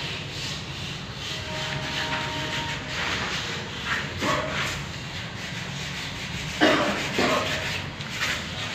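Sandpaper rubbing and scraping on a plastered wall during wall finishing, in uneven strokes, with a few louder scrapes near the end.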